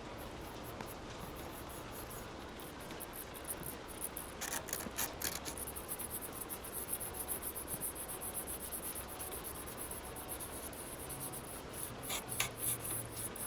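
Scratchy rubbing strokes of hand work on the old toothed trowel, short strokes in quick succession, with a few louder scrapes about four to five seconds in and near the end.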